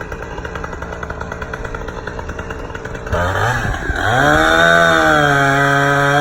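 Two-stroke chainsaw engine running at a low, steady speed, then revved up about three seconds in and held at high speed, much louder.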